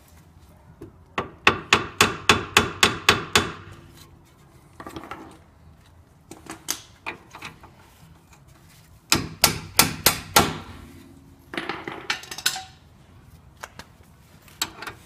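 Sharp metallic taps on a socket fitted over the tie-rod end's castle nut, in quick runs of about four a second, with a short ring after each. The nut is being worked off to shear the rusted-in cotter pin.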